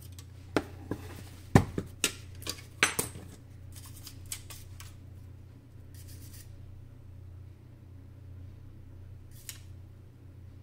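Sharp clicks and clatter of a circuit board and tools being handled on a workbench, bunched in the first few seconds, then a few short scrapes, over a steady low hum.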